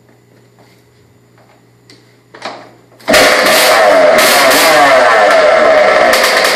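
Freshly rebuilt 1990 Kawasaki KX125's single-cylinder two-stroke engine kick-started: it fires suddenly about three seconds in and runs loud, the revs rising and falling.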